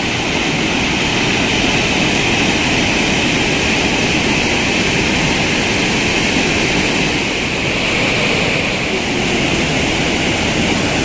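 Mountain river rushing over boulders in whitewater rapids: a steady, loud rush of water.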